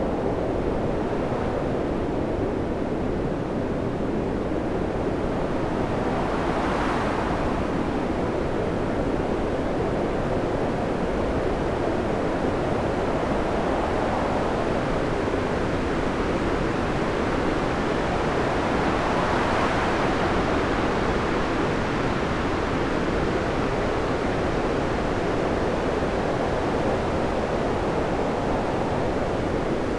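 Stormy sea: waves and surf rushing without a break, with two louder swells of breaking water about seven and twenty seconds in.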